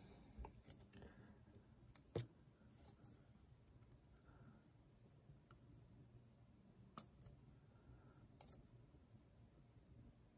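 A few faint, scattered clicks of small metal knife parts handled by hand as the lock bar and omega spring of a Benchmade Bugout are fitted into its handle; otherwise near silence.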